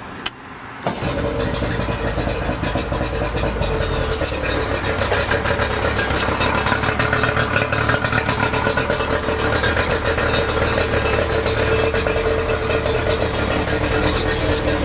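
2007 Yamaha 50 hp two-stroke outboard starting, catching almost at once about a second in, then idling steadily.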